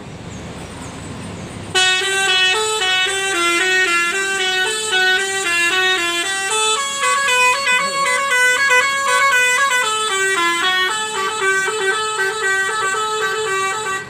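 Bus 'telolet' multi-tone horn playing a tune of quick stepped notes, starting about two seconds in and sounding on without a break.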